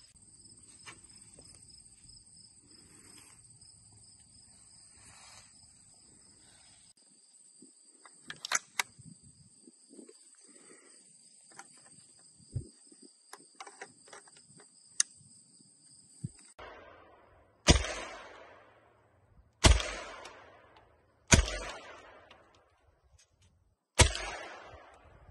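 Four single shots from a Beretta M1918 submachine gun, roughly two seconds apart, each followed by a fading echo. Before them, insects buzz steadily and a few sharp metallic clicks sound as the gun is handled.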